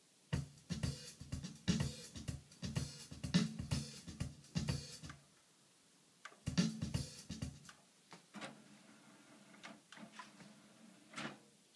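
Drum-led rock music played from CD through the hi-fi, with kit drums, hi-hat and cymbals. It stops about five seconds in, comes back for about a second, then stops again. Faint clicks follow as the CD player's disc tray is opened.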